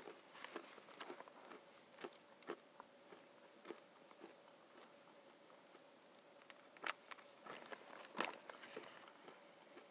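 Quiet snacking from a plastic food bag: faint crinkles and crunches as scattered small clicks, with two sharper clicks near the end, over a faint steady hum.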